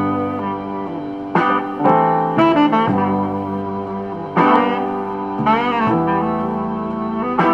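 Instrumental jazz-tinged music with a saxophone lead playing over a backing.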